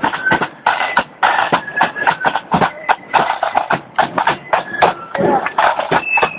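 Marching band playing as it passes: a steady run of drum beats with a high melody line of short held notes over them.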